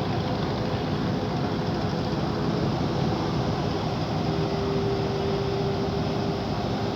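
Ship's engine running steadily as the vessel pulls away after its mooring lines are cast off, a constant low rumble with a steady hum joining in about four seconds in.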